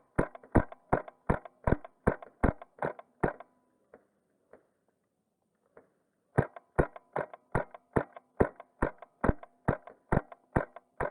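Wolverine MTW HPA airsoft rifle firing rapid semi-automatic shots, about three a second: a string of about ten, a pause of about three seconds, then another long string.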